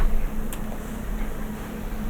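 Steady low hum with a single short click about half a second in.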